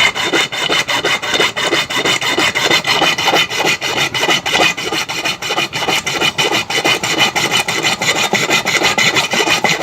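Hacksaw cutting through a rusted metal bolt in quick, even back-and-forth strokes, levelling its corroded end flat; the sawing stops at the end.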